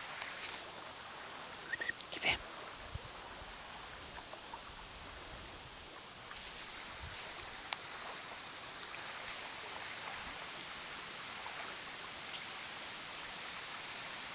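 Steady outdoor background hiss with a handful of short, sharp clicks and snaps scattered through it.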